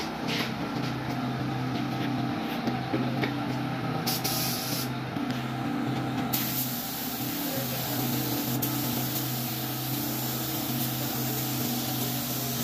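Air spray gun hissing as it sprays paint: a short burst about four seconds in, then a steady spray from about six seconds in. A steady low mechanical hum runs underneath.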